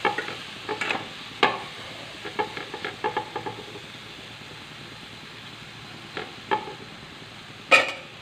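Spatula scraping and knocking against a metal kadai while stirring softened raw-mango pieces with tomato and green chilli, over a steady sizzle of the mixture cooking in oil. The strokes come thick in the first few seconds, then there are a few scattered knocks, the loudest near the end.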